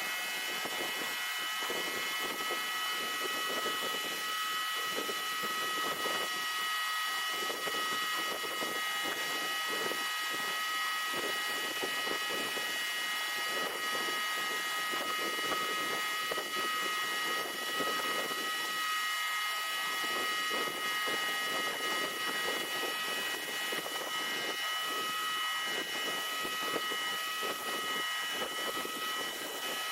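Electric pressure washer of just over 2,000 psi running steadily with a 15-inch surface cleaner attachment on a concrete driveway. A constant high whine sounds over the hiss of the water spray.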